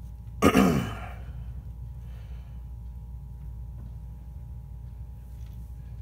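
A man's short sigh, falling in pitch, about half a second in, over a steady low hum. A few faint ticks come later.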